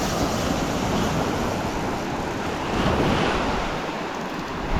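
Ocean surf breaking and washing on the beach, with wind buffeting the microphone; the noise swells a little about one and three seconds in.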